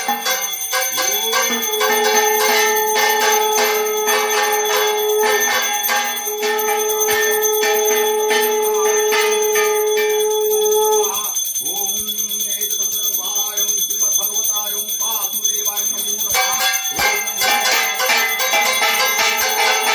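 Brass puja hand bell rung rapidly and without pause, as in worship at a Hindu home altar. Over it a long held tone rises into pitch and holds for several seconds, twice; the second begins about halfway through.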